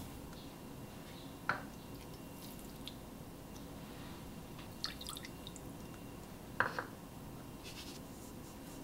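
Sauce ingredients being added to a nonstick pan: a few faint, sharp clicks and drips over low room noise, with a brief soft hiss near the end.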